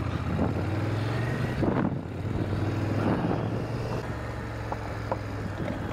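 Motorcycle engine running steadily while riding along a gravel dirt road.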